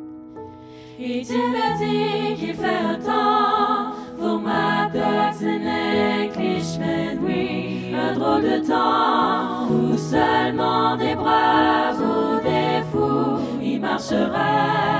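A four-part SATB choir sings a cappella in French, several voice parts moving together in chords. The full sound comes in about a second in, after a short pause between phrases.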